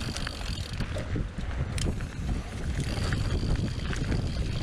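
Wind buffeting an action camera's microphone during a fast mountain-bike descent, with the tyres rolling over the dirt trail and the odd knock from the bike.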